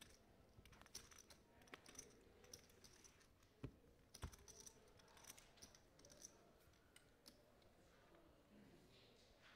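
Faint, irregular clicking of clay poker chips and cards being handled at the table, with two sharper clicks a little before the middle.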